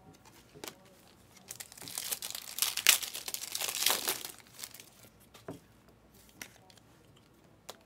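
Foil wrapper of a Panini Select trading-card pack being torn open and crumpled: a loud crinkling stretch from about a second and a half in until about four seconds in. It is followed by a few soft clicks as the cards are handled.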